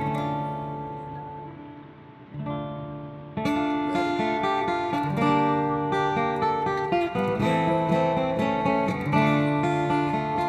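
Acoustic guitar strumming the instrumental intro of a song: a chord rings out and fades over the first two seconds, then the strumming starts up again and carries on in a steady rhythm.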